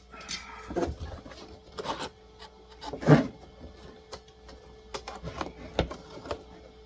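A cardboard toy box and its packaging being handled during unboxing: irregular rubbing and scraping with scattered knocks, the loudest about three seconds in.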